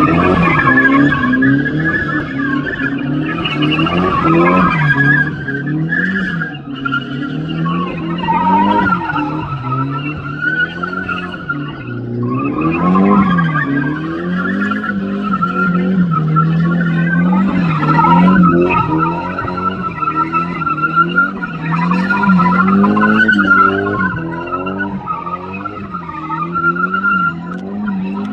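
Nissan Silvia S14 drifting in continuous circles: the engine's revs rise and fall every second or two as the throttle is worked, over an unbroken squeal of the spinning rear tyres.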